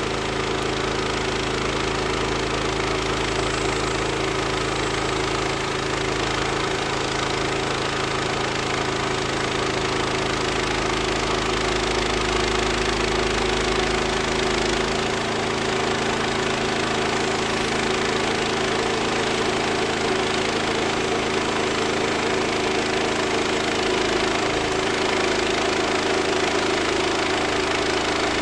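Woodland Mills HM126 portable bandsaw mill's gas engine running steadily under load as its band blade cuts lengthwise through a cedar log.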